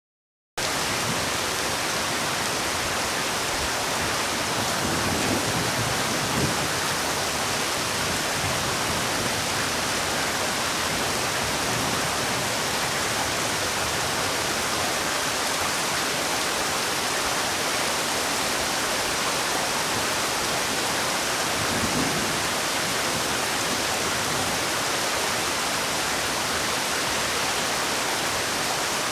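Heavy rain falling steadily: a dense, even hiss that starts about half a second in, with a couple of brief low swells.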